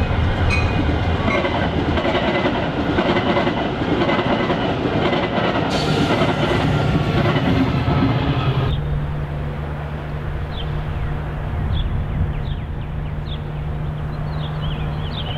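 Metra commuter train passing close at speed, wheels clattering over the rails and crossing. About nine seconds in it cuts off suddenly to a quieter steady low drone from a train approaching in the distance, with short high chirps.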